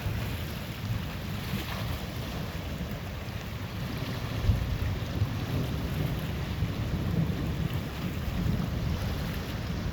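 Thunder from a lightning storm rumbling low and steadily under wind noise, swelling slightly about four and a half seconds in.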